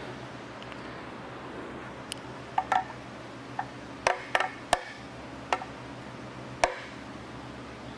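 A scattered series of about nine sharp metallic clinks and taps, as hard parts and tools are handled and set down, each with a short ring. They fall between about two and seven seconds in, over a steady low hum.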